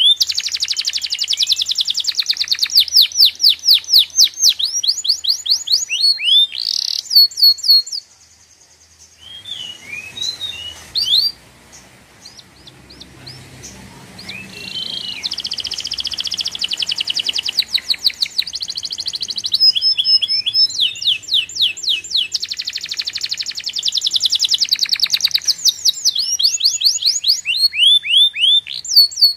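A bird singing in long, fast trills of high, rapidly repeated chirps, with a quieter stretch between about eight and fifteen seconds in.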